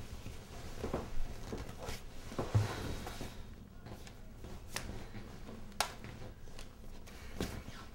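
Quiet room with rustling and handling noises as a person shifts on a couch and handles a TV remote. There is a soft thump about two and a half seconds in, then a few sharp clicks spaced about a second apart.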